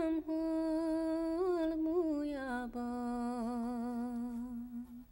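A woman's voice singing a Hungarian folk song unaccompanied, holding long wavering notes. The melody steps down about halfway through and the voice fades out at the end.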